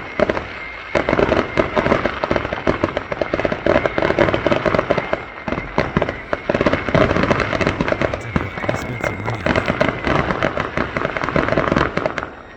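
Many fireworks going off at once: a near-continuous barrage of bangs, pops and crackles, with a short lull about a second in.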